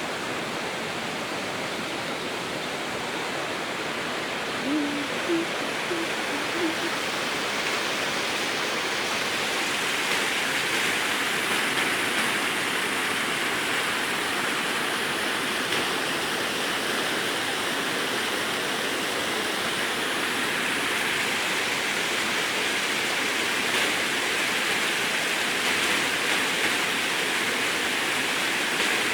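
San Antonio River water rushing over rocks, a steady rushing that grows a little louder about a third of the way in. A few short low-pitched sounds come through briefly a few seconds in.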